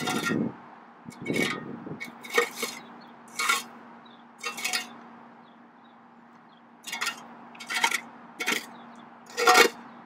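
Steel square-point shovel scraping and scooping loose infield dirt, about ten short scrapes with a metallic clink, the first two heavier and longer. A faint steady hum runs underneath.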